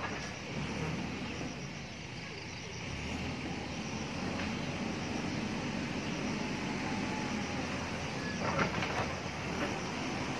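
A Mahindra backhoe loader's diesel engine running steadily while the machine turns and drives along the road, getting a little louder after a few seconds. A few short knocks come about eight and a half seconds in.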